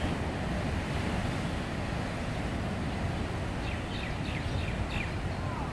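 Ocean surf breaking on black lava rocks: a steady, heavy wash of churning water. A handful of short, high, falling chirps come about four seconds in.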